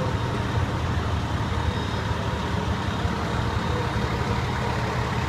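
Fire truck's diesel engine idling with a steady low rumble.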